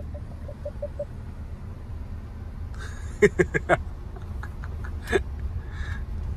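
Low, steady rumble of a car moving slowly. A run of rapid, even beeps stops about a second in, and a few short, sharp sounds come about three seconds in and once more near five seconds.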